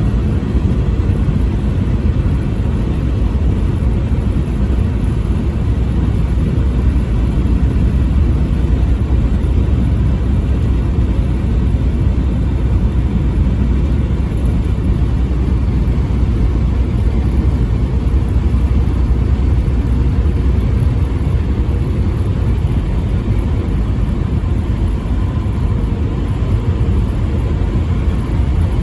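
Steady low rumble of a vehicle in motion, with no change through the whole stretch.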